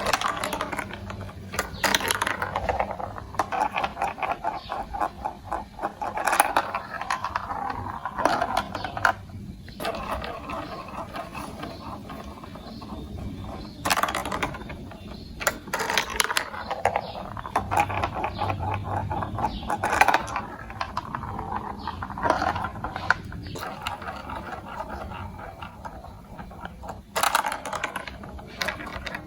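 Glass marbles rolling and clattering through a plastic building-block marble run: a continuous rattle of rapid small clicks, with sharper clacks every few seconds as marbles drop onto or knock against the track.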